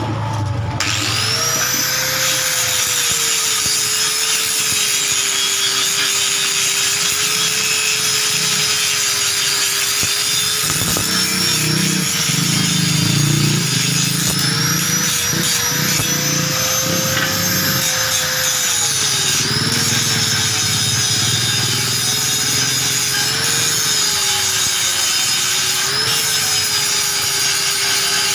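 Electric motor-driven tool starts and runs steadily, its pitch dipping briefly at times as it is loaded. A rough rasping, grating sound works against it through the middle of the clip.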